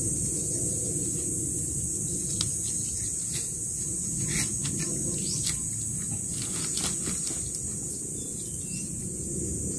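A steady high drone of insects, with scattered light clicks and rustles as bamboo poles are bound together with a plant strip, over a low rumble.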